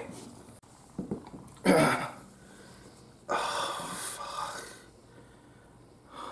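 A man breathing hard in distress: short gasps about a second in, a louder gasp near two seconds, then a long, breathy exhale.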